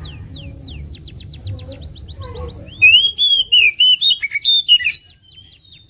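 Oriental magpie-robin singing: a rapid run of falling whistles, about five a second, then from about three seconds in a loud, varied warbling phrase that breaks off about a second before the end.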